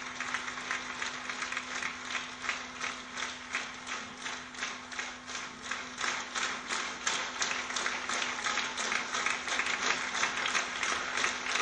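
Audience clapping in unison in a steady rhythm of about three claps a second, growing a little louder in the second half, over a faint steady hum.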